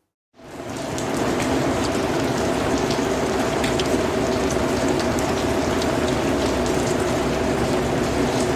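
Steady rain in a rainforest ambience, fading in within the first second and then holding as a constant dense hiss with scattered drops ticking through it.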